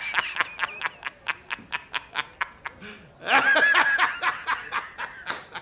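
A man's cackling laugh. It opens with a rapid run of short "ha" bursts, about five a second. About three seconds in comes a long, high-pitched peal of laughter that trails off.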